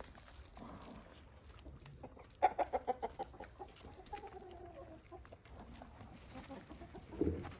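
Chicken clucking: a quick run of clucks about two and a half seconds in, followed by a longer call that falls in pitch.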